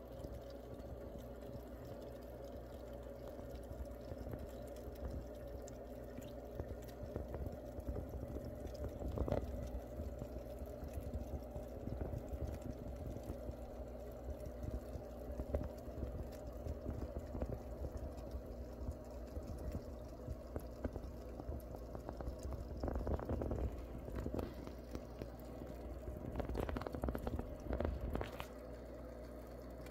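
Aquarium sponge filter's air bubbles rising and popping at the water surface: a continuous soft gurgling and dripping, louder in short spells about a third of the way in and near the end, over a steady hum.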